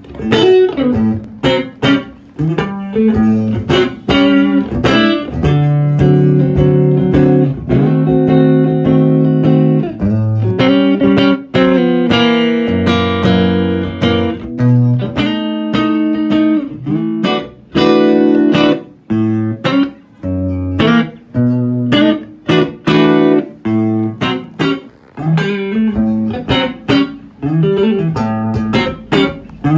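Electric guitar played through a 1960s Ampex Model 2012 amplifier-speaker, a 10-watt amp driving one 8-inch speaker: picked single notes and runs, with a few chords left to ring for about two seconds.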